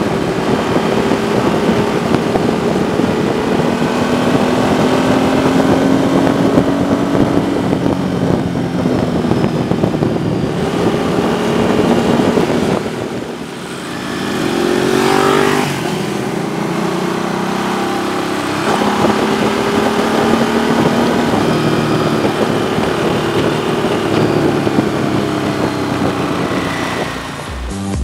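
Motorcycle engine running while riding at speed, its pitch slowly rising and falling, over a steady rush of wind. About halfway through it drops briefly, then revs up sharply.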